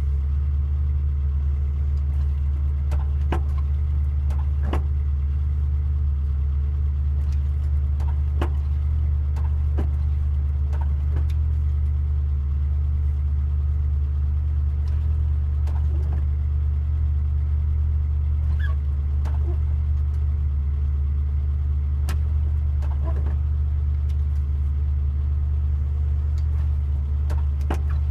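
Morris Minor's four-cylinder engine idling steadily, with scattered light clicks as the dashboard push-buttons for the washer and wipers are pressed.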